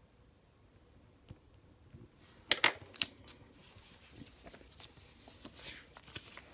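Canadian polymer banknotes being handled: after a quiet start, a few sharp snaps about two and a half seconds in, then a crinkly rustle as the bills are pulled out and spread out.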